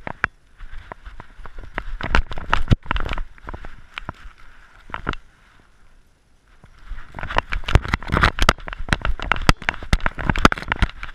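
Irregular clattering, knocking and rubbing from a GoPro camera hung on a dog's neck as the dog moves about. It comes in two spells with a quieter pause in the middle.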